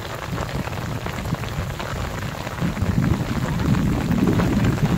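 Heavy rain pouring down, a dense patter of drops hitting close by. A low rumble swells beneath it in the second half.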